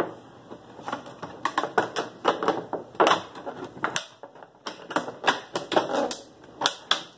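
Pointed scissors snipping a circular hole in the side of a PET plastic jug: a quick, irregular run of sharp clicks and plastic crackles, with a short pause about four seconds in.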